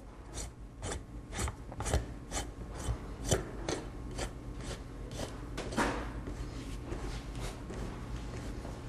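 Wing nut being hand-turned down the stud of an engine's air filter housing, a short metallic rasping scrape with each turn, about twice a second, thinning out near the end. A steady low hum runs underneath.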